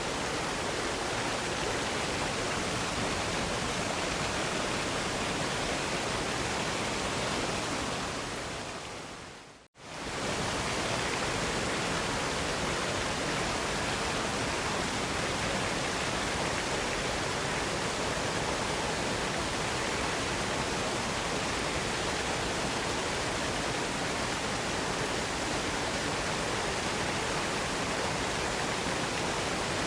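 Waterfall rushing in a steady, even roar of falling water; about ten seconds in it fades away to silence for a moment and then swells straight back.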